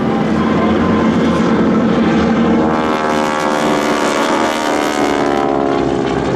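Pratt & Whitney R-1340 Wasp radial engines and propellers of North American SNJ Texans flying past at speed: a loud, steady, many-toned drone. Its pitch bends slightly and it turns brighter and raspier for a couple of seconds in the middle as the planes pass closest.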